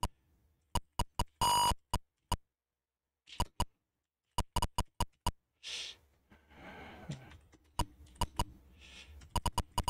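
Typing on a mechanical keyboard with Kailh Box Pink switches: a run of sharp key clicks at an uneven typing pace, with one short buzzing beep about one and a half seconds in.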